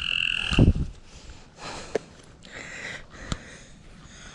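A frog gives one short croaking call at the start. Softer rustling and two sharp clicks follow.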